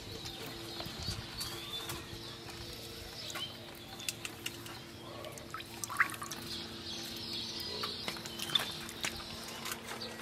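Birds chirping in the background, with small clicks and crackles from crisp fuchka shells being handled and filled, the sharpest about six seconds in. A faint steady hum runs underneath.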